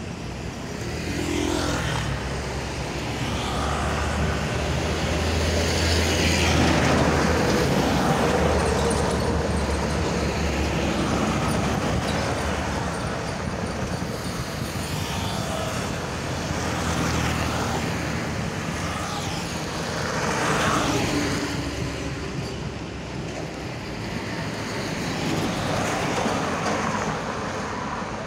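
Road traffic passing close by: cars, motorbikes and minibuses going by one after another, each swelling and fading. A deep low rumble comes in a few seconds in and lasts several seconds under the traffic.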